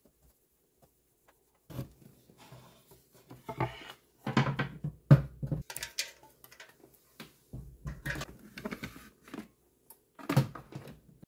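Small kitchen appliances being picked up and set down on a countertop: irregular knocks, bumps and clatters, loudest about four to five seconds in and again near the end, with a power cord and plug being handled.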